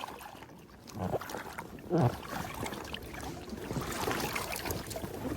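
Water lapping and splashing around a float tube, with small irregular drips and splashes, and two short voice sounds about one and two seconds in.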